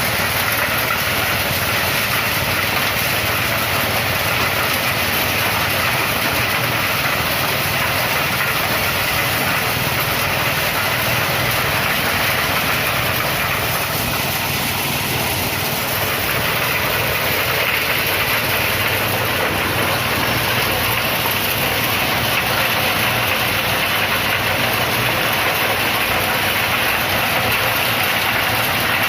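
Engine-driven corn sheller running steadily, making a constant loud mechanical noise with no change in speed.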